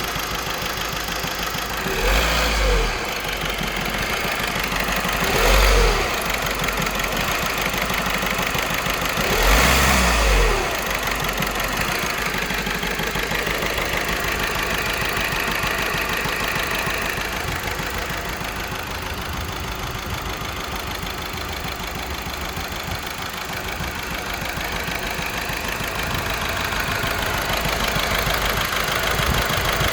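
Volkswagen 1.6 TDI CAYC four-cylinder diesel engine running with a misfire, idling steadily and briefly revved three times in the first ten seconds or so.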